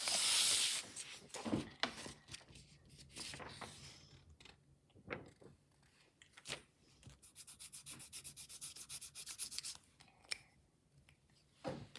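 Rubbing and scraping handling noise with scattered sharp clicks: a loud rub at the start, then a fast run of short scratchy strokes in the second half.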